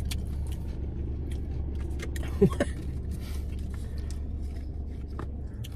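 Steady low rumble in a car cabin, with scattered small clicks and crunches of eating close to the microphone.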